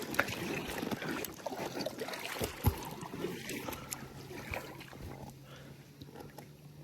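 Kayak being paddled: water splashing and trickling off the paddle blades, with two sharp knocks, the louder one about two and a half seconds in. The splashing fades toward the end, leaving a faint steady low hum.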